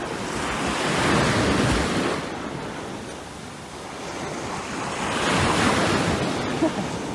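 A steady rushing noise that swells and fades twice.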